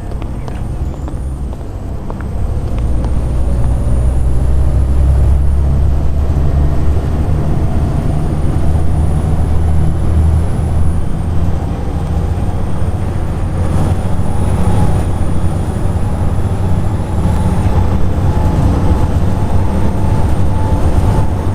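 Volvo B7TL bus's six-cylinder diesel pulling hard under acceleration, a deep drone over a high hoover-like whine. The whine climbs slowly and drops back three times as the bus changes up through its gears.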